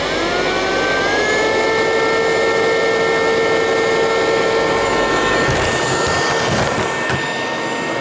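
Miele Scout RX2 robot vacuum cleaner running: its motor whine rises in pitch over about the first second and then holds steady over a rushing hiss. A few dull knocks come around six to seven seconds in.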